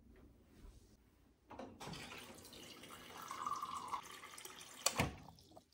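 Faint water running, as from a tap, with one sharp knock near the end.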